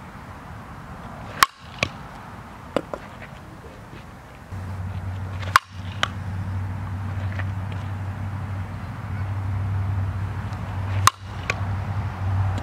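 Softball bat hitting tossed softballs in batting practice: three sharp cracks of contact about four to five seconds apart, each followed by a fainter knock. A low steady hum comes in about four and a half seconds in.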